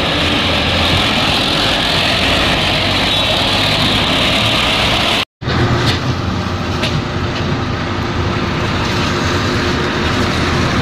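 Steady road traffic and vehicle engine noise, broken off completely for a moment about halfway through.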